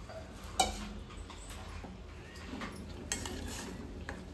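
Steel ladle knocking against a steel saucepan of milk while stirring: a sharp clink about half a second in and another about three seconds in, with a few lighter taps over a low steady hum.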